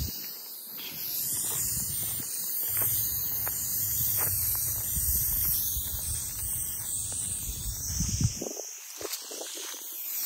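Steady high-pitched buzzing of night insects, with a low rumble of wind on the microphone that drops out for the last couple of seconds, and a few faint steps or knocks.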